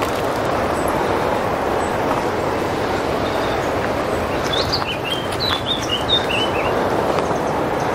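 A songbird sings a short run of quick chirping notes about halfway through, over a steady rushing background noise.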